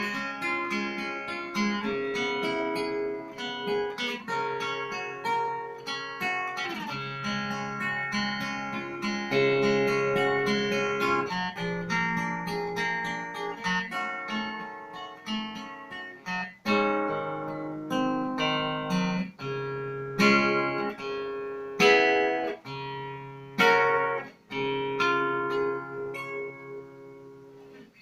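Harley Benton round-back acoustic-electric guitar, an Ovation copy, played through its piezo pickup: picked notes and chords at first, then in the second half separate strummed chords, each left to ring and die away.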